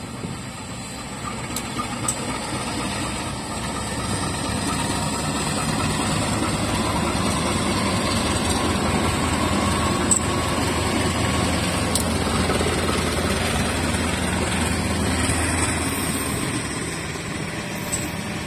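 KAI CC201 diesel-electric locomotive's engine running as it passes, growing louder as it comes close and fading as it moves away.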